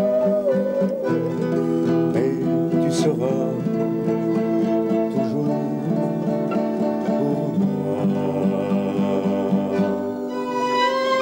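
Live acoustic folk music: an acoustic guitar plays a lively rhythm under other instruments holding long notes. Near the end a higher, wavering melody line comes in.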